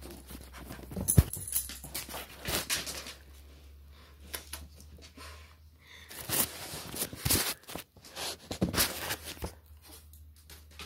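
A dog panting while its paws are wiped with a towel, with irregular scuffs and rustles of fur and cloth close to the microphone.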